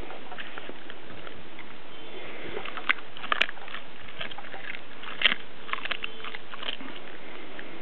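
Two spaniels, a springer and a sprocker, eating raw food: chewing with scattered sharp clicks, the loudest a little after five seconds in, over a steady hiss.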